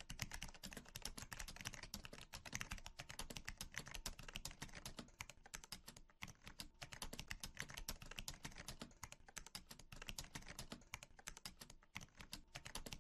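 Faint, rapid computer-keyboard typing, a steady run of many keystroke clicks a second, sounding as the text is typed out.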